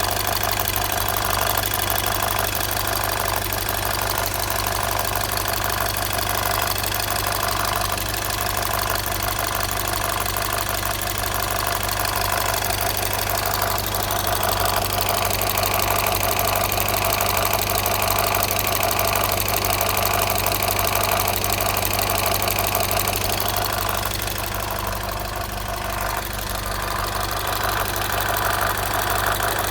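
A VW Passat B6's 2.0 FSI petrol engine running at a steady idle with a fast, even ticking over it. This is the extraneous noise the owner is trying to trace, and its cause is unknown.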